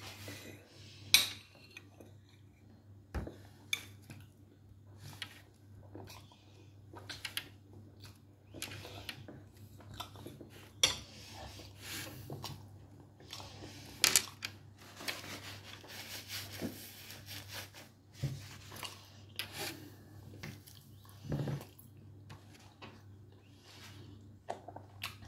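Cutlery and dishes clinking now and then during a meal, with chewing and mouth sounds in between. The clinks are scattered and sharp, a few much louder than the rest, over a steady low hum.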